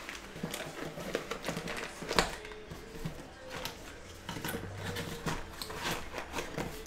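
Cardboard box and the plastic wrap inside it being handled: scattered light rustles and taps, with one sharper knock about two seconds in.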